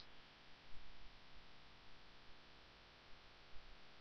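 Near silence: the faint steady hiss and low hum of an open mission-control voice-loop line.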